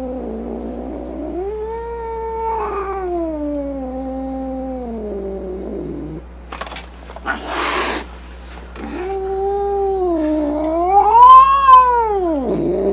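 Domestic cat yowling in long, wavering calls, with a harsh hiss about halfway through, then a louder yowl that rises and falls. This is the threatening growl-and-hiss of an angry, defensive cat.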